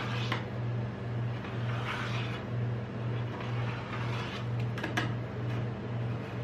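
Metal spatula scraping and scoring a frozen ice-cream sheet on the steel cold plate of a rolled-ice-cream machine, a few short scrapes with a sharp click about five seconds in, over the machine's steady low hum that pulses about twice a second.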